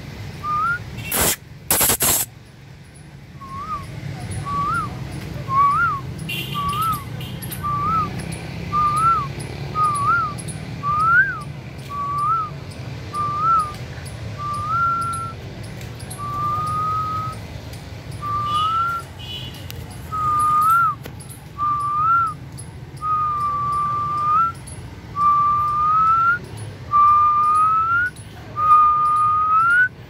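A whistled note repeated about once a second, each with a quick upward flick at the end; after about halfway the notes grow longer and are held before rising at the end. Two loud, harsh bird screeches about a second in.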